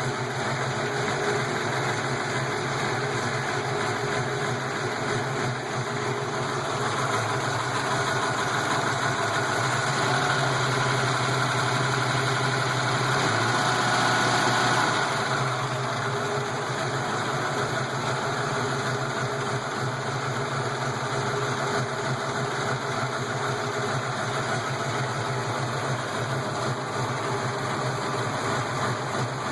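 331 V8 engine idling while warming up, with the lifter noise it is filmed for. The engine gets a little louder for several seconds around the middle, then settles back to a steady idle.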